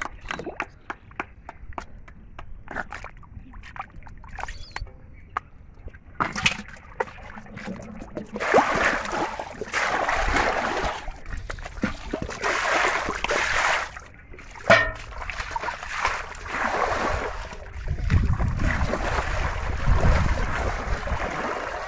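Muddy water splashing and sloshing as it is scooped and thrown with a metal bowl, in repeated bursts from about eight seconds in, with small wet splats and squelches of mud before that. There is a single sharp knock about midway.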